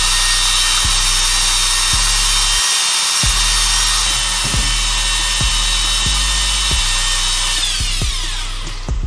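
Cordless drill running at a steady high speed with a whining motor, spinning a mixing shaft in a plastic jar of melted cream; about eight seconds in the motor winds down and stops. A steady beat of background music plays underneath.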